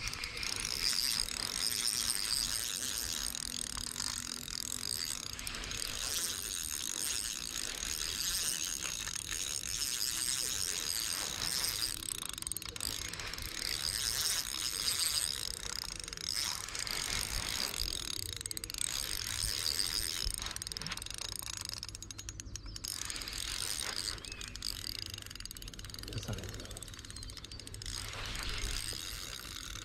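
Ultralight spinning reel being cranked, its gears whirring and ticking as line winds in, stopping briefly a few times between spells of winding.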